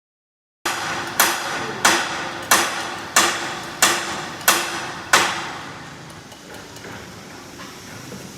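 Hammer blows, about eight in a steady rhythm of roughly one and a half a second, each ringing briefly. The sound cuts in abruptly about half a second in, and after the last blow only a fainter steady background remains.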